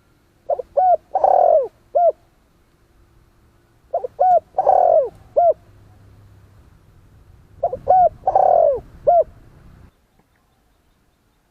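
Spotted dove cooing: three repeated song phrases a few seconds apart, each two quick coos, a long falling coo and a short closing coo.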